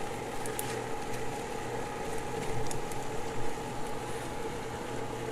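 Pot of water at a hard boil on an induction cooktop, with a steady hum underneath.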